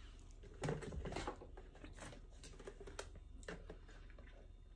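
Faint clicks and small sipping sounds as a person drinks water through a straw from a plastic cup, with a brief louder sound just under a second in.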